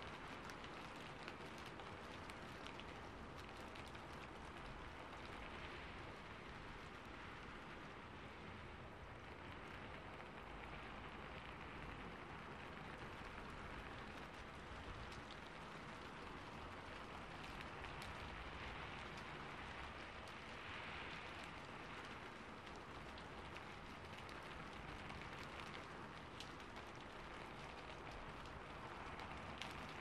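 Steady rain beating on a roof: a continuous hiss dotted with many sharp individual drop impacts.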